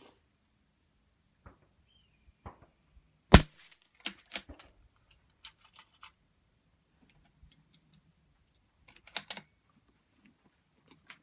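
One suppressed rifle shot from a Ruger 77/17 bolt-action in .17 HMR fired through a Gemtech Outback II rimfire suppressor, a sharp crack about a third of the way in. Quieter metallic clicks follow about a second later and again near the end as the bolt is worked.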